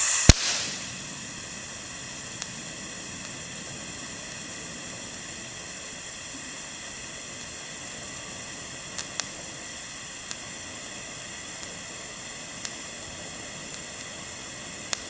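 TIG welding arc from a Unimig Razor 200 AC/DC inverter welder on thin stainless strip. It starts with a brief loud crackle, then holds a steady hiss with a thin high whine, with a few faint ticks along the way.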